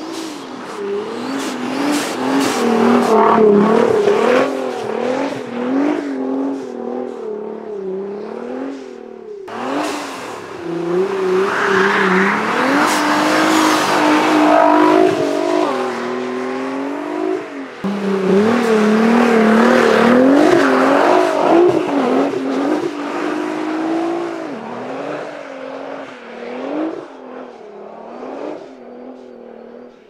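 Tuned 900 hp Nissan GT-R R35's twin-turbo 3.8-litre V6 revving up and down again and again as the car drifts on a snowy road, loudest as it slides past close by and fading as it drives off near the end.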